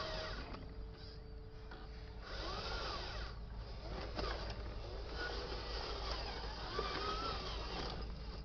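Small electric motor and gearbox of a radio-controlled dump truck whining, the pitch rising and falling again and again as the throttle is worked on a climb. A quieter stretch with a low steady hum comes about a second in.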